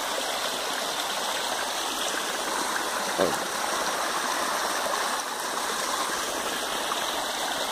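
Small forest stream running over rocks: a steady rush of shallow flowing water.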